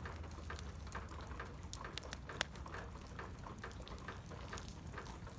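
Bits of ice falling off a roof, a scatter of irregular small taps and ticks like raindrops, with one sharper tap about halfway through.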